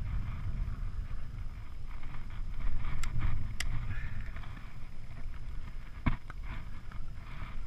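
Shallow lake water lapping and sloshing, with a low wind rumble on the microphone and a few sharp clicks, about three seconds in and again near six seconds.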